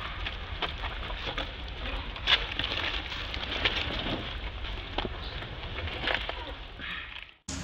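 Rustling and scattered sharp clicks over a steady background hiss, as monkeys move over dry leaves and stone; no clear crying or calls. The sound cuts out briefly near the end.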